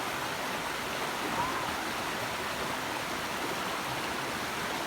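A creek running, a steady rush of flowing water.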